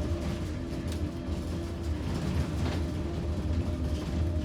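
Electric bus riding along: steady low rumble of road noise with a faint, even hum from the drive.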